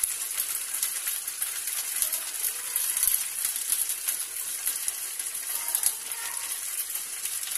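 Rava (semolina) dosa frying in oil in a nonstick pan, a steady sizzle with frequent small crackles; the dosa is not yet fully cooked.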